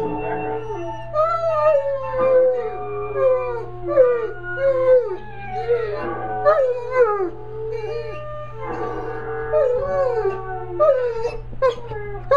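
Dog howling and whimpering in many short rising-and-falling glides, several pitches sounding at once, with no break.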